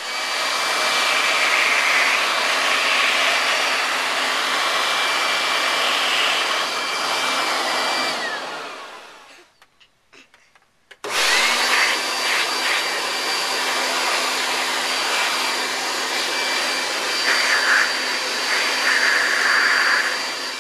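Leaf blower running with a steady rush of air and a high fan whine, winding down and stopping about eight seconds in. About eleven seconds in it is switched back on, spinning up with a rising whine, and runs steadily again.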